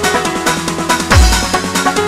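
Electronic dance music with a fast, steady beat, and a deep bass drop about a second in.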